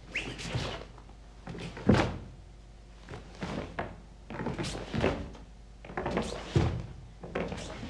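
Sharp snaps of a karate gi and thuds of bare feet on the floor as a karateka steps and punches through a kata, about six strikes at a steady pace, the loudest about two seconds in.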